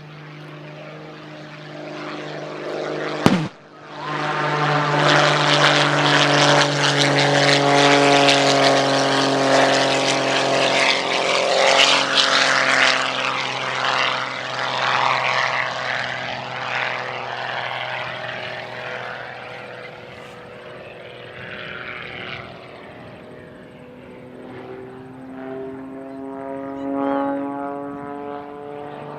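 Propeller-driven aerobatic plane flying past low, its engine drone swelling to a loud rush and then fading, with the engine pitch shifting as it passes. A single sharp crack sounds about three seconds in.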